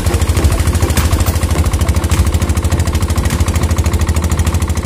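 Small boat's engine running steadily with a rapid, even chugging.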